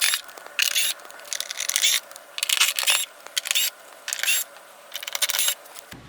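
Low-powered cordless screwdriver running in a string of short bursts, about one a second, backing Phillips screws out of a plastic door panel. The bursts stop just before the end.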